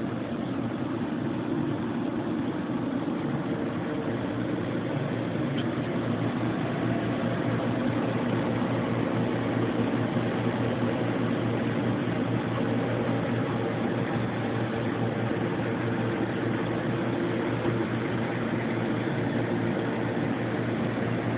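Mighty Viper PBM-135A CNC horizontal boring mill running under power, a steady even machine hum with a constant low tone.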